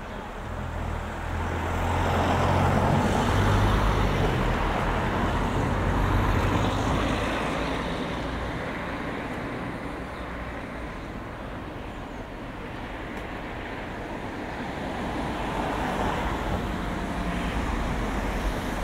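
A motor vehicle passing along a village road: its engine hum and tyre noise swell over the first few seconds and then fade away. Another vehicle approaches near the end.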